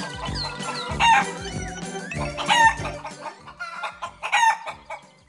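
Three short chicken calls, a farmyard sound effect, over light background music.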